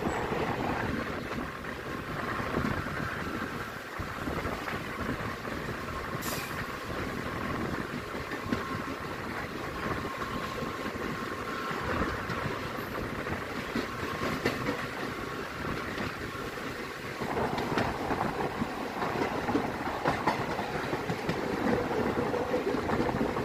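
Express passenger train running along the track, heard from an open coach window: a steady rumble and clatter of wheels on rails that grows louder about two-thirds of the way through.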